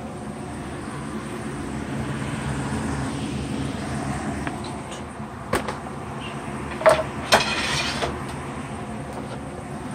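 Metal kitchen tongs tossing fried potato fries in a plastic colander, with a few sharp clacks and a short rattle in the second half. A steady low hum runs underneath.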